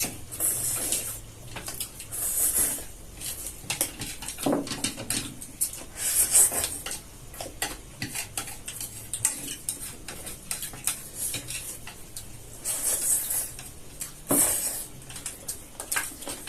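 Chopsticks clicking and scraping against plates of noodles, many small clinks throughout, with louder bursts every few seconds.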